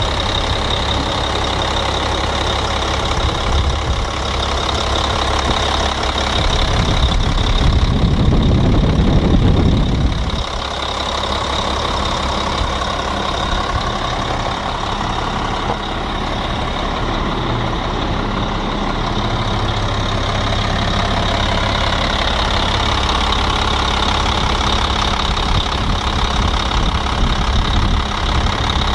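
Caterpillar 966H wheel loader's diesel engine running steadily. It grows louder and deeper for a few seconds, about seven seconds in, then drops back sharply about ten seconds in.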